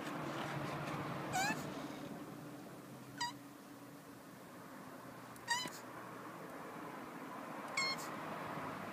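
Male tortoise squeaking while mounting a female during mating: four short, high, piping calls about two seconds apart.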